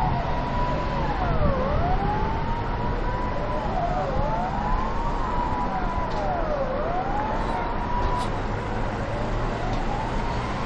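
Two or more emergency-vehicle sirens wailing at once, overlapping, each sweeping down and back up about every two and a half seconds, over a steady low rumble.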